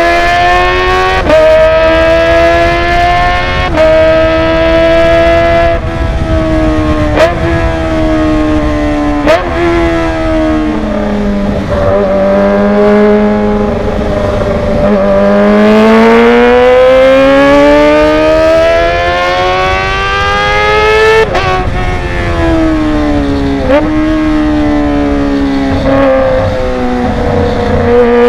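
Kawasaki ZX-25R's 250 cc inline-four engine running loud through a Villan Z1 underbelly aftermarket exhaust. Its pitch climbs and drops suddenly several times, as at gear changes, falls low and steady in the middle, then climbs again to another sudden drop.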